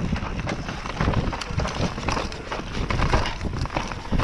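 Mountain bike descending a leaf-covered dirt forest trail at speed: tyres rumbling over the ground with frequent rattles and knocks from the bike.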